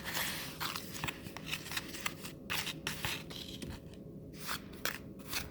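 Baking soda and water being stirred into a paste in a bowl: irregular gritty scraping strokes.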